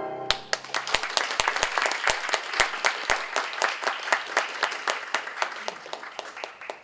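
Congregation applauding with many hands clapping, starting just as the orchestra stops and gradually fading away.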